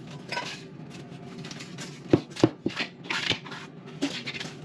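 Broom sweeping debris across a hard floor: short brushy strokes of the bristles, with a few sharp knocks and clatters a couple of seconds in.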